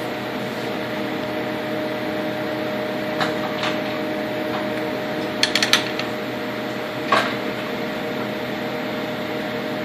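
Dyna Myte 1007 CNC mill running with a steady hum made of several fixed tones. A few short sharp clicks stand out, including a quick cluster of them about five and a half seconds in.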